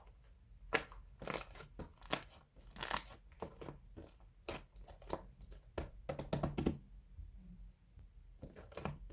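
Slime being mixed and squished by hand, making irregular sharp sticky pops and clicks, a few each second, with a denser cluster about six seconds in.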